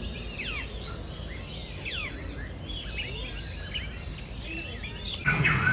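Many small birds chirping, with quick high calls sweeping up and down in pitch over a steady background hiss. Near the end the sound cuts suddenly to something louder, with a low steady hum.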